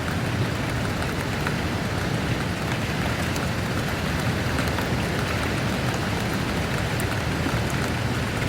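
Steady rain falling, with a continuous low rumble beneath and scattered drops ticking on a surface.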